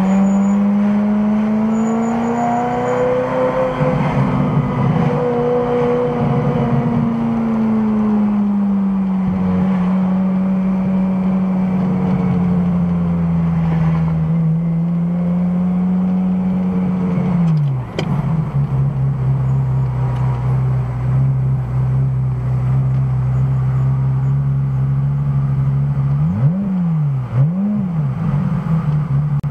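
Ferrari F355's V8 engine running under way, its note drifting slowly up and down with speed. About two-thirds through the pitch drops sharply as it shifts up a gear, and near the end the engine revs up and down quickly three times.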